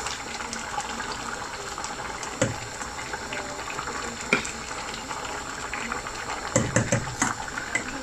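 Thick rice-and-lentil khichuri simmering and bubbling in a stainless steel saucepan while a metal spoon stirs it, with a few sharp clinks of the spoon against the pan and a busier stretch of stirring near the end.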